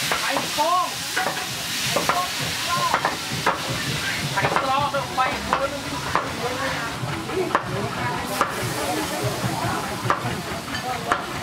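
Food sizzling as it fries in a pan while being stirred, with frequent short clinks and scrapes of the utensil against the pan.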